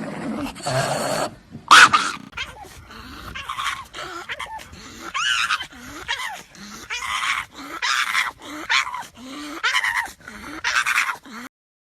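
A dog making a long run of short whining yowls that rise and fall in pitch, roughly one a second. The calls stop abruptly near the end.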